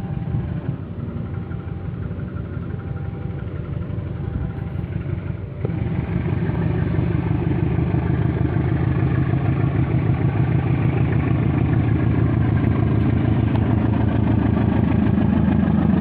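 A train's diesel engine running with a low, steady rumble. About five and a half seconds in it steps up suddenly in loudness, then keeps building slowly, as the engine takes load for departure.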